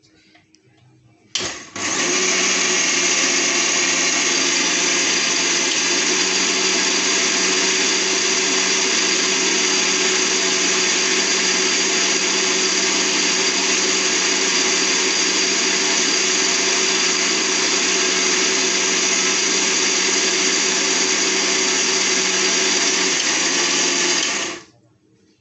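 Lifelong mixer grinder motor switched on, with a brief burst, then running at a steady speed for about 23 seconds, grinding a wet red spice paste in its steel jar. It cuts off suddenly near the end.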